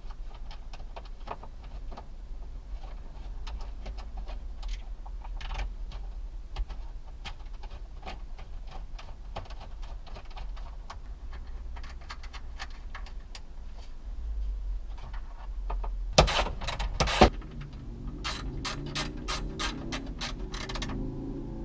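Hands working on car dashboard wiring and parts: scattered light clicks and taps of plastic connectors and fittings over a low hum, with two louder knocks about three-quarters of the way in and then a quick run of regular clicks, about four a second, near the end.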